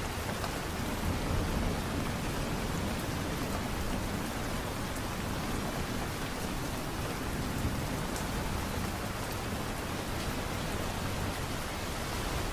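Light rain falling steadily, an even hiss with faint scattered drop ticks.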